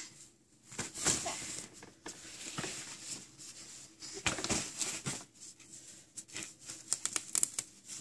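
Irregular rustling and crinkling as plush leaf toys hanging from a play-yard toy bar are handled and shaken, with scattered soft clicks.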